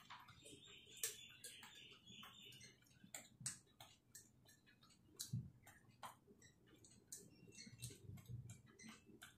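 Faint, irregular clicks and crunches of a gray langur eating grain or seeds picked from a plastic tray, a few clicks a second.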